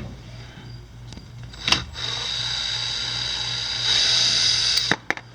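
Drill with a T30 Torx bit running to back out the last screw of a plastic under-engine panel. A steady motor whine starts about two seconds in after a click, gets louder about a second before it stops, and runs for about three seconds in all.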